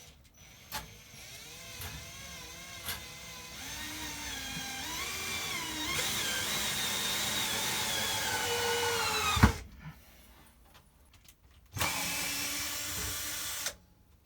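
Power drill driving screws: the motor runs for several seconds with its pitch wandering up and down as the trigger and load change, ending with a sharp knock, then a second, shorter steady run near the end.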